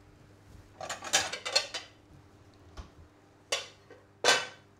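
Ceramic plates clattering as they are taken from a cupboard and set down on a worktop: a quick run of clinks about a second in, then two sharp clinks near the end, the last ringing briefly.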